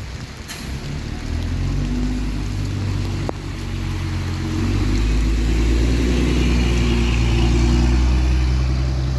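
Mercedes-Benz Citaro city bus's diesel engine pulling away under throttle, its blown exhaust giving a loud, raw note. The engine grows louder about halfway through as it accelerates, then holds steady.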